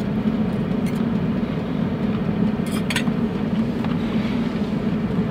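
Steady low mechanical hum, with a few light clicks about a second in and around three seconds in.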